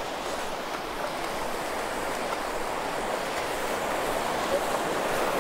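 Ocean surf breaking and washing up a sandy beach: a steady rush of waves and foam that grows slightly louder toward the end.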